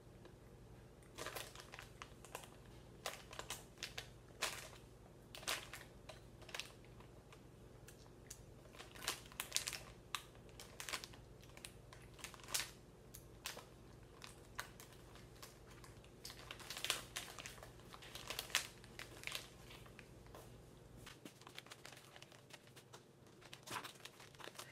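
Irregular crinkling and rustling, short crackles coming every second or so, over a low steady hum that stops shortly before the end.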